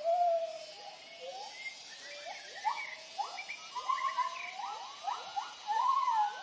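Gibbons calling: a chorus of hooting notes, most sliding upward in pitch, overlapping in quick succession, over a faint steady high drone.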